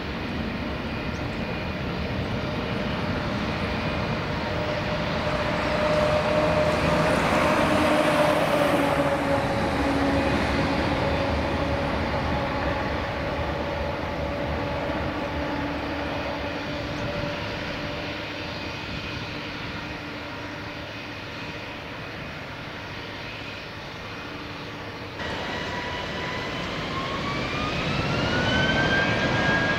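Airliner jet engines at takeoff power rolling past, a roar with a whine that is loudest about eight seconds in and dips slightly in pitch as it passes, then fades. Near the end the sound switches abruptly to an airliner's engines spooling up for takeoff, a whine rising in pitch as it grows louder.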